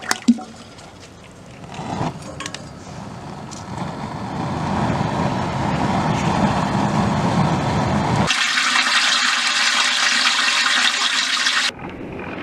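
Water gushing steadily from a tap, building up over the first few seconds. About eight seconds in it switches abruptly to a brighter, higher hiss, which cuts off sharply near the end.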